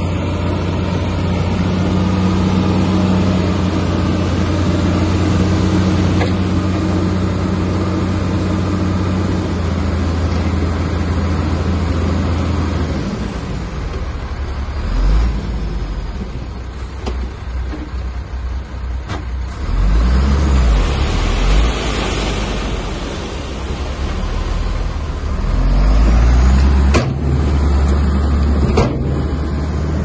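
Heavy diesel engine of a Komatsu bulldozer at work: a steady hum for the first dozen seconds, then a lower rumble that rises and falls, with several sharp metallic knocks.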